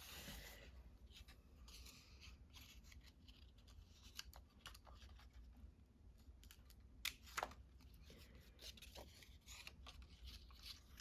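Faint, scattered snips and crisp rustles of scissors cutting paper, with two sharper clicks about seven seconds in.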